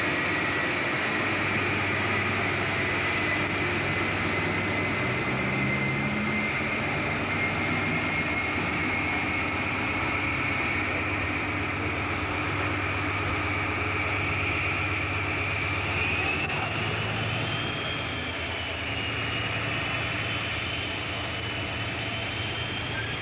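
British Rail InterCity 125 (HST) Class 43 power car's Paxman Valenta diesel engine running as the train moves away, a steady high-pitched whine over a low engine hum. The whine climbs slowly and rises sharply in pitch about two-thirds of the way through, then fades a little near the end.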